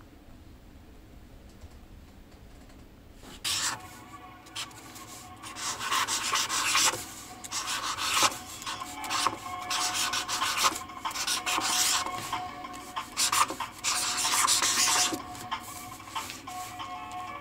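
Paint marker nib scratching and rubbing across sketchbook paper in quick, irregular strokes, starting about three and a half seconds in.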